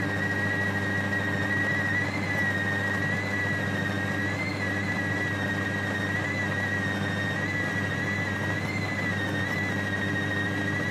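Food processor motor running at speed with a steady high whine, grinding raw pork, starch and water into a smooth paste (giò sống) for pork roll.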